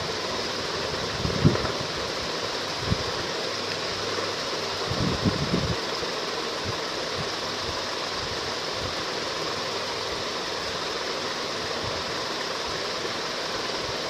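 Steady hissing background noise, with a few soft low thumps about a second and a half in, at three seconds, and around five seconds in.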